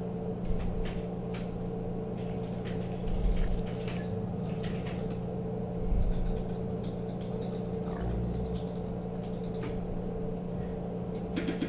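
Scattered light clicks, taps and a few soft knocks of plastic and metal parts as the autocutter mechanism is worked loose and lifted out of a receipt printer, over a steady low electrical hum.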